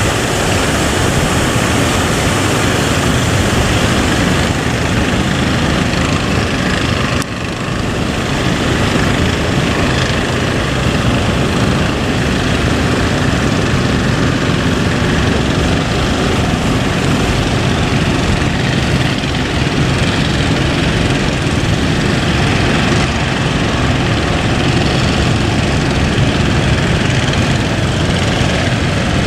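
Boat engine running steadily under way, mixed with a loud rushing noise, with a brief drop in level about seven seconds in.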